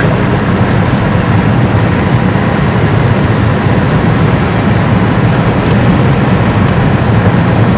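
Steady road noise inside a moving car's cabin, with engine and tyres at cruising speed making a constant low drone.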